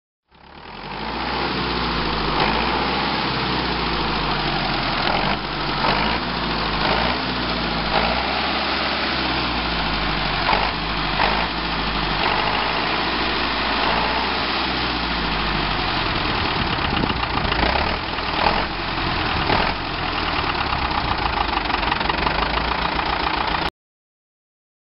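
Valmet 80 tractor's diesel engine running and being revved up and down again and again. The sound fades in at the start and cuts off suddenly near the end.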